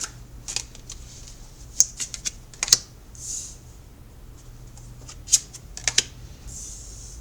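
Tarot cards being dealt and laid out on a table: scattered sharp clicks and snaps as cards are set down and turned over, with two soft swishes of a card sliding, about three seconds in and near the end.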